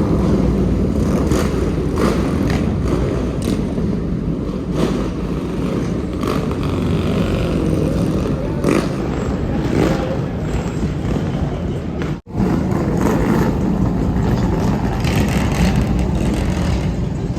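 City street traffic noise: vehicles passing on a busy boulevard, with scattered clatter.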